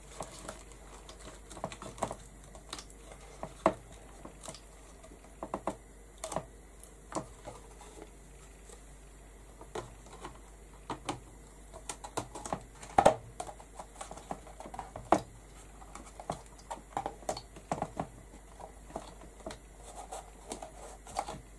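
Irregular light knocks and clicks of panels being handled and pressed into a wooden frame, with louder knocks about 13 and 15 seconds in.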